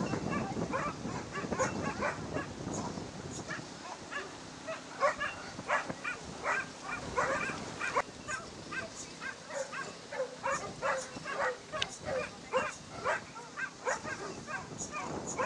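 A dog barking over and over, short barks in quick succession at about two or three a second, plainest from about four seconds in.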